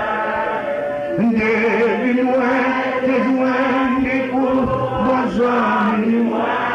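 A man singing a worship hymn, solo voice holding long notes with short breaks between the phrases.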